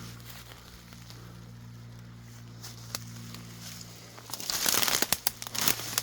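Footsteps crunching and rustling through dry brush and leaf litter, with sharp snaps of twigs, loudest in the last two seconds. A faint steady low hum runs underneath before the steps get loud.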